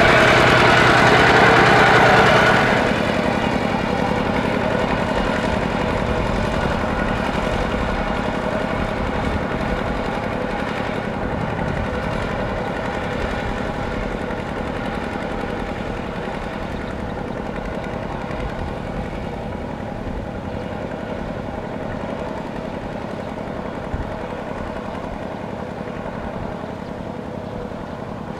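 Kubota ZT120 single-cylinder diesel engine of a two-wheel walking tractor running steadily while it plows through deep mud. It is louder for the first couple of seconds, drops suddenly, then slowly fades as the tractor moves away, with one sharp tick near the end.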